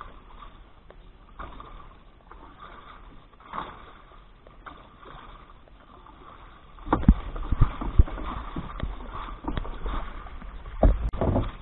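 Water sloshing and splashing against a small wooden fishing boat's hull, with a run of sharp knocks and bumps from about seven seconds in and another cluster near the end.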